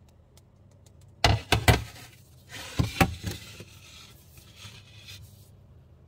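Metal springform cake tin set down on a glass fridge shelf: three sharp knocks about a second in, then a scrape with a couple of clicks as it is slid into place, fading to a faint rustle.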